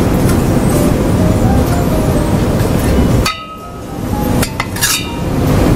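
A metal ladle scooping, scraping and clinking against a brass pan as a cooked vegetable dish is served out, with a few sharp, briefly ringing metal clinks between about four and five seconds in. A steady background noise fills the first three seconds, then drops away.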